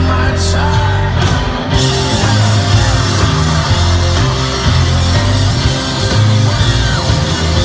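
Live rock band playing a loud instrumental passage, with drums and guitar driving over a heavy pulsing low beat.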